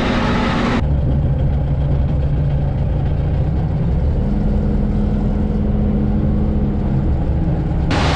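Tractor engine running steadily, its pitch stepping up about four seconds in. Abrupt cuts just under a second in and near the end switch to a brighter, hissier engine and wind sound.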